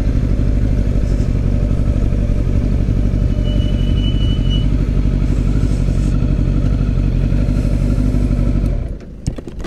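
Kawasaki ZX-10R's inline-four engine running steadily without revving. The engine sound drops away sharply near the end, followed by a few short clicks.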